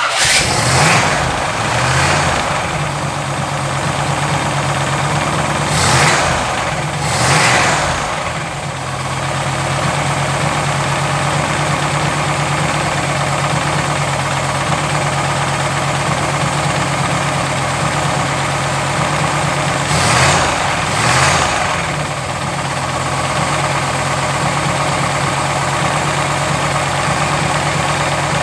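Carbureted built crate 350 V8 running at a fast idle, blipped up in short revs a few times, with a rattling/knocking noise under it.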